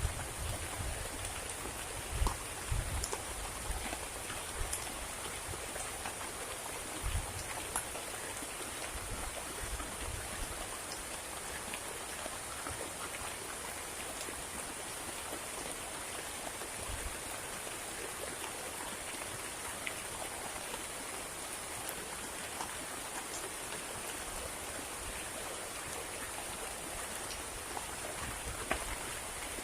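Heavy rain falling steadily, with a few low thumps in the first few seconds and again near the end.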